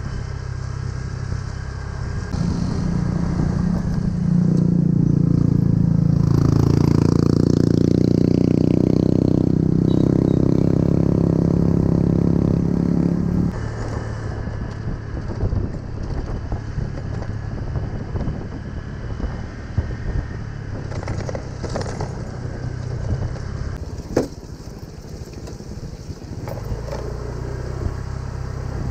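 Small motor scooter engine running as the scooter rides over a rough dirt road. The engine is louder and strained for about the first half, then settles lower. Rattles and knocks from the bumpy ground come through, with one sharp knock near the end.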